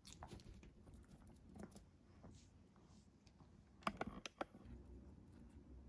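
Faint clicks and taps of a Pomeranian's claws on a hard floor, with a short cluster of sharper clicks about four seconds in as it squeezes under a sofa.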